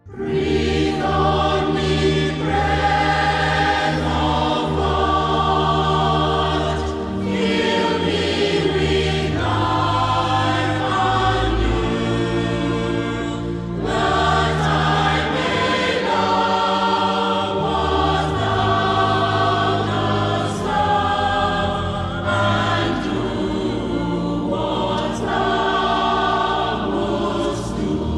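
A choir singing church music, starting suddenly right after the previous music fades out.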